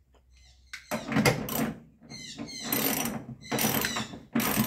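Socket ratchet wrench clicking as a seat-mounting bolt is tightened, in about four strokes.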